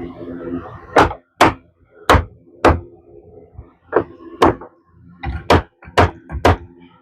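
Hammer striking wood framing: about ten sharp blows at an uneven pace, several of them in quick pairs.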